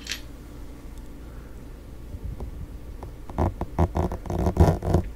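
Fingers plucking and brushing at a foam-covered microphone at close range: faint at first, then a fast run of scratchy rustles and taps in the second half. There is a short high hiss right at the start.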